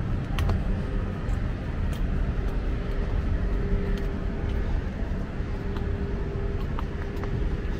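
City street ambience: a steady low rumble of road traffic with a steady hum over it and a few light clicks.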